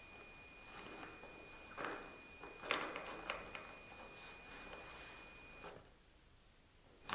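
A multimeter's continuity beeper sounds a steady high-pitched tone, which means the plasma cutter torch-hose wire under test conducts. The tone cuts off suddenly after about six seconds and starts again near the end. Light clicks and rustling from handling the probes and hose come through under it.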